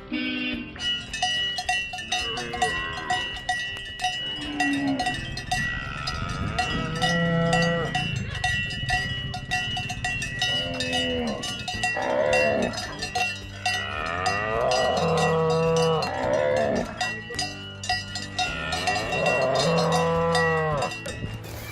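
Cows mooing again and again, long rising-and-falling calls, over the continuous clanking and ringing of cowbells.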